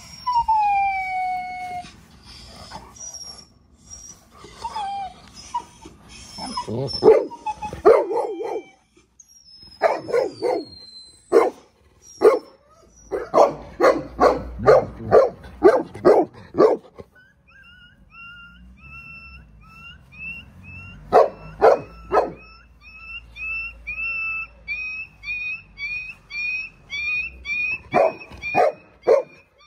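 Recorded dog crying played through a portable Bluetooth speaker, in falling whimpering whines, then runs of barking two or three barks a second. From a little past halfway, a string of short high squeaks repeats about twice a second, broken by further short runs of barks.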